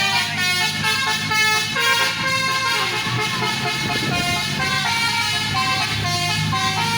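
Tour bus's 'telolet basuri' multi-tone air horn playing a tune in stepped notes, over the steady low rumble of the bus engine.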